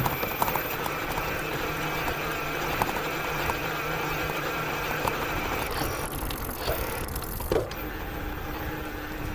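Bafang M620 1000 W mid-drive e-bike motor running while being ridden, heard as a steady whirr mixed with tyre and ride noise, with a few small clicks and rattles.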